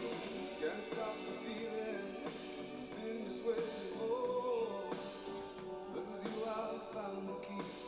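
Background music: a rock-style song with guitar and a singing voice.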